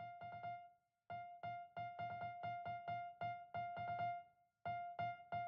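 Background music: a keyboard tone repeating one note in quick rhythmic runs, with short breaks about a second in and again near four seconds.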